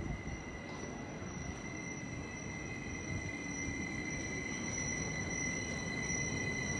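SOB Traverso Stadler Flirt electric multiple unit pulling slowly into the station, a low rumble growing gradually louder as it approaches. A steady high whine runs through it.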